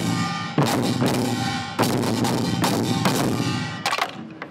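Large Korean barrel drums (buk) struck together in heavy unison strokes about a second apart, each stroke left to ring on. The strokes thin out and the sound dies away near the end as the drum piece finishes.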